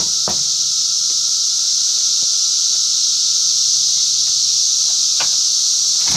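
Cicadas buzzing in a loud, steady, high-pitched chorus, with a few faint clicks.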